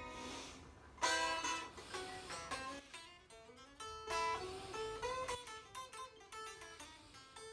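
Guitar playing: a strummed chord about a second in, then single picked notes with a few sliding pitches.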